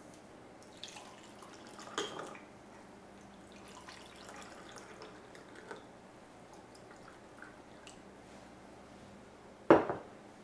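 Tea trickling from a ceramic teapot's spout into two cups, a faint pouring with small drips. One loud knock near the end.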